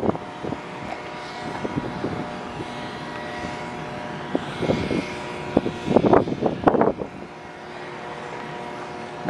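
A steady engine drone with several held tones. Short rumbles of wind on the microphone come near the middle and again a second or two later.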